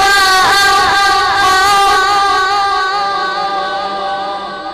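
A boy's voice in melodic Quran recitation, holding one long ornamented note at the end of a verse, which fades away over the last two seconds.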